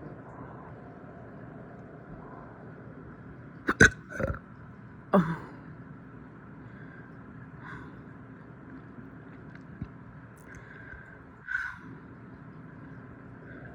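A person's hiccups in a bout brought on by burping: two sharp hiccups close together about four seconds in, another just after with a falling pitch, and a softer one near the end.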